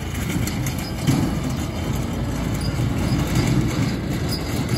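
A side-by-side utility vehicle driving at low speed with its engine running, towing a four-wheeled steel cart trailer that rattles and clanks over rough ground.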